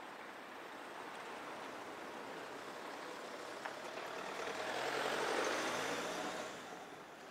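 A motor vehicle driving past: engine and tyre noise growing louder to a peak about five seconds in, then fading.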